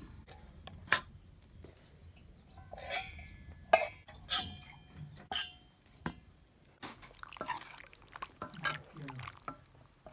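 Kitchenware clinking: about a dozen sharp clinks of utensils against dishes or pots, several with a short metallic ring, mixed with liquid sounds while the freshly cooked chicken curry is handled.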